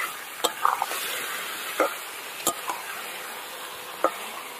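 Loitta (Bombay duck) fish pieces sizzling in onion-and-spice paste in a metal kadai, with a steady hiss, while a metal spatula stirs them and knocks against the pan four or five times.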